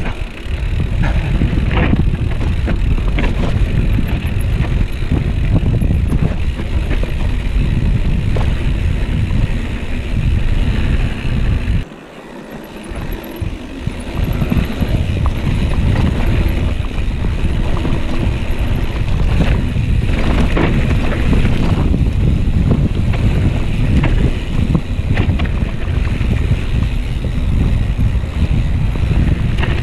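Wind buffeting the action camera's microphone on a moving mountain bike, with scattered knocks and rattles from the bike on a rough trail. The wind noise drops away sharply for a second or two about twelve seconds in, then builds back.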